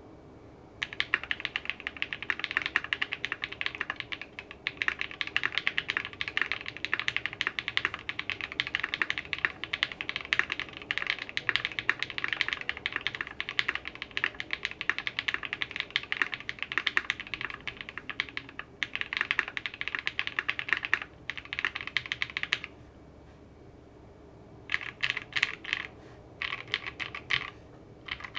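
Fast typing on a gasket-mounted ai03 Vega mechanical keyboard with a leaf-spring FR4 plate and foam dampening, its lubed and filmed Creamerons linear switches and PBT keycaps making a rapid stream of keystrokes. The typing stops for about two seconds near the end, then comes back in short bursts.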